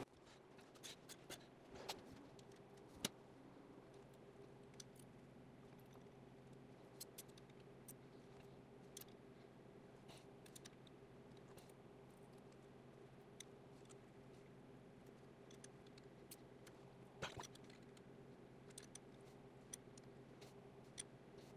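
Near silence with faint, scattered metallic clicks and taps of hand tools on the rocker gear of a four-cylinder overhead-valve cylinder head while the valve clearances are set with a feeler gauge, ring wrench and screwdriver. A few sharper clicks stand out about 2, 3 and 17 seconds in, over a steady faint hum.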